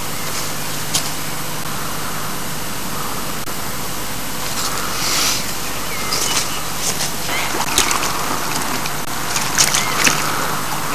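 Steady hiss and low hum, with scattered knocks and rustles from about halfway in, and light water sloshing and knocks near the end as a man steps into a small moored boat.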